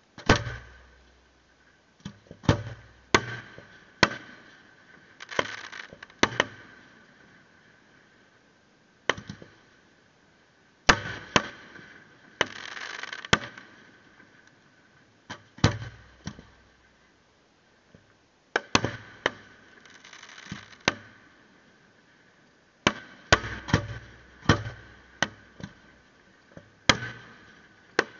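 Fireworks display: aerial shells going off with sharp bangs in uneven clusters, separated by gaps of a second or more. A few bursts trail off into a second or two of crackling hiss.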